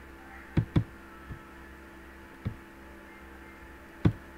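Five short, sharp knocks at uneven intervals, the first two close together about half a second in and the last near the end, over a steady low hum.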